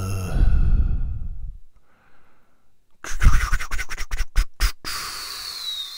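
A man's long, low sigh, then a rapid run of scratchy clicks and rustling as a marker pen and the plastic model are handled, ending in a thin, falling squeak.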